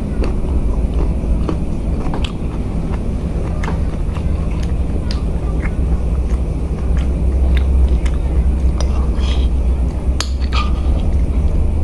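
Eating sounds: a person chewing a mouthful of rice and tempe, with scattered short clicks of a metal spoon against a plate, over a steady low rumble.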